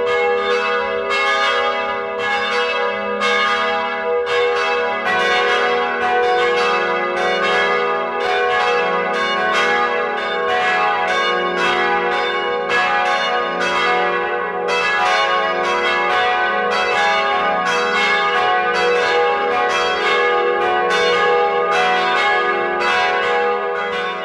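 Church bells chiming in a continuous peal, about two strikes a second, each bell ringing on over the next.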